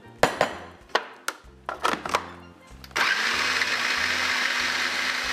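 Hard plastic clicks and knocks as the lid and pusher are fitted onto a food processor, then about three seconds in its motor starts and runs steadily, its blades chopping water-soaked French bread into a paste.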